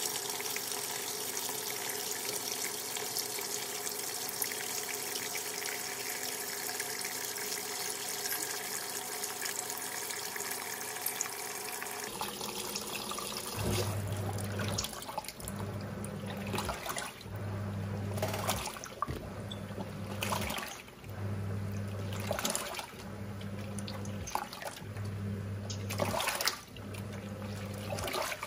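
Giantex EP23113GB top-loading washing machine on its rinse: water running steadily into the tub. About twelve seconds in, the agitator motor takes over, humming in short pulses roughly every two seconds as it drives the agitator back and forth through the water.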